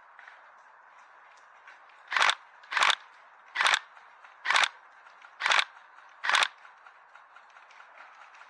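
An airsoft rifle firing six single shots, a little under a second apart, each a sharp loud snap.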